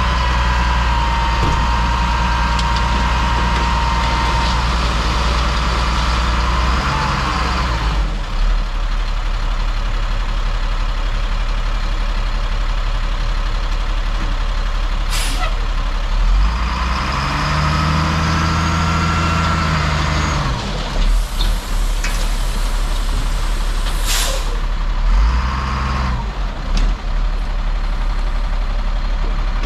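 Dump truck's engine running under load as its hydraulic hoist tips the bed and dumps a heavy load of dirt. A steady whine over the engine for the first several seconds, then the engine revs up and back down about halfway through, with a few short knocks.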